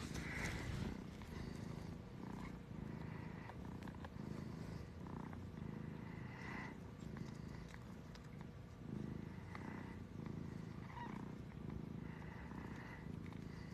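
Siberian mother cat purring steadily, a low rhythmic purr, while lying with her newborn kittens in the middle of giving birth.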